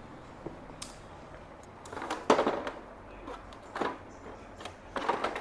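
Handling noise: a few short clunks and scrapes of equipment being moved about, the loudest about two seconds in.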